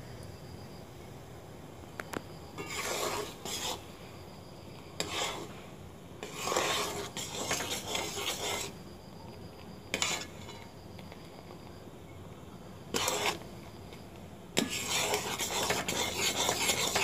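Spatula scraping and stirring around a metal kadai of thin, melting sugarcane-jaggery syrup, in repeated strokes with short pauses between, the longest stroke near the end.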